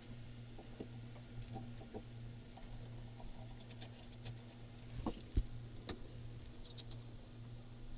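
Scattered small clicks and taps of a bipod being fitted and clamped onto a 3D-printed plastic picatinny rail under a Daisy Red Ryder BB gun, with a louder knock about five seconds in. A steady low hum runs underneath.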